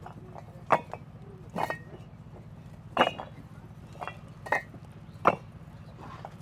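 Fired clay bricks clinking against one another as they are stacked one by one onto a head load, about six sharp knocks at uneven intervals over a steady low hum.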